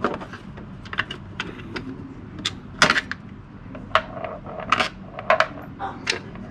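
Irregular metallic clinks and knocks, about a dozen, a few ringing briefly, as tools and parts are handled while the CVT side cover of a Yamaha Aerox 155 scooter is taken off.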